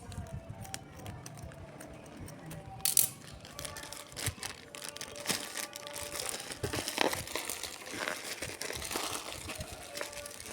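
Packaging crinkling and rustling as it is handled and opened. A loud crackle comes about three seconds in, followed by many small irregular crinkles.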